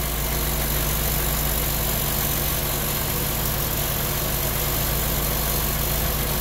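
Honda B18B1 1.8-litre four-cylinder engine idling steadily, with the A/C compressor engaged and running after a fresh refrigerant charge.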